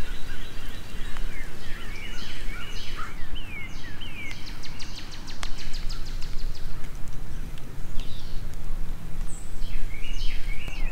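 Birds singing and calling outdoors: many short chirps that sweep downward in pitch, some in quick repeated series. Under them runs a steady low rumble.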